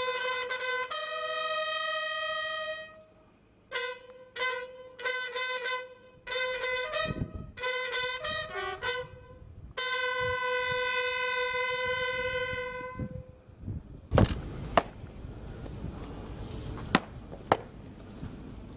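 Military bugle call played by army buglers: long held notes mixed with quick runs of short notes, ending about 13 seconds in. Then a steady outdoor hiss with a few sharp knocks.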